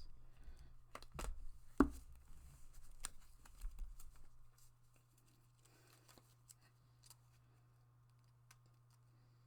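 Tarot cards being shuffled and handled: a run of soft slaps and snaps for the first four and a half seconds or so, with one sharper knock near two seconds in. After that only a low steady hum remains.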